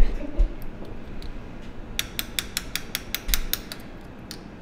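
Quick, even, light hammer taps on a bezel pusher, hammer setting a stone into a metal bezel: about five or six sharp taps a second, starting about two seconds in and pausing near the end.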